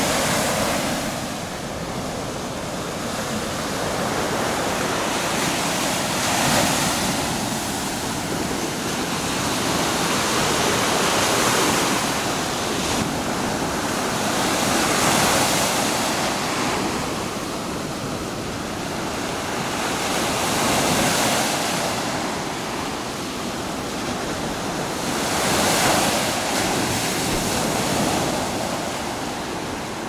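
Small Baltic Sea waves breaking and washing up a sandy beach: a steady rush of surf that swells and eases every few seconds.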